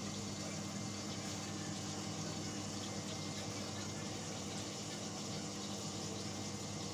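Indesit washing machine running through its wash cycle: a steady motor hum with water noise, unchanging throughout.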